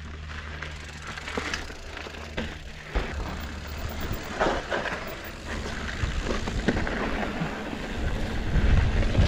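2021 Ibis Ripmo AF mountain bike riding over a dirt and rock singletrack: tyres rolling and crunching, with the bike clattering and knocking over bumps. The knocks pick up about three seconds in, and a low rumble grows louder near the end.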